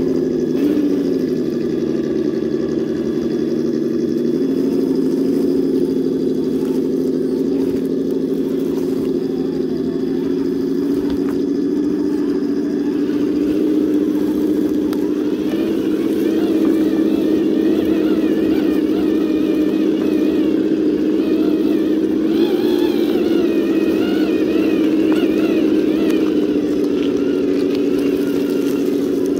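Traxxas TRX-4 crawler's 21-turn Titan brushed motor and gearbox whining steadily at crawling speed, the pitch shifting slightly with the throttle.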